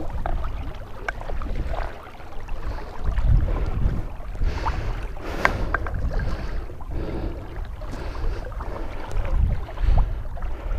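Sloshing and splashing in marsh water, with scattered knocks, over a low wind rumble on the microphone.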